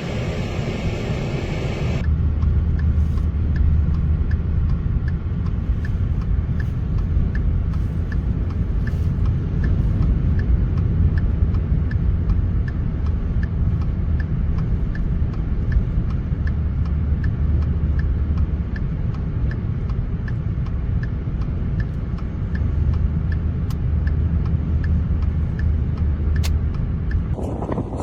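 Inside a moving car: steady low road and engine rumble, with a turn-signal or hazard relay ticking evenly about twice a second. A brief different noisy clip opens it.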